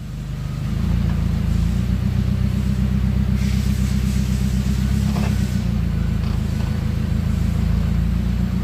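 Forklift engine running steadily with a low rumble that swells over the first second as the truck creeps forward.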